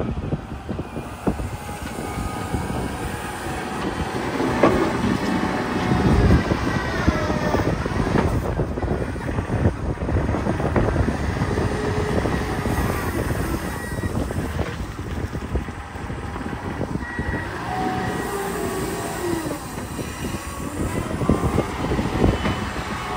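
Kubota RA501 wheel loader's diesel engine running and revving under load as the loader digs into a dirt pile and works its bucket. Whines rise and fall in pitch as the engine and hydraulics are worked.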